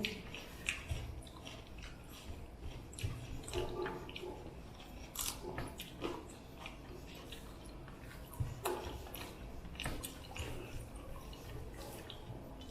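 Quiet eating sounds: chewing and smacking, with scattered small clicks and taps of food and dishes at irregular intervals.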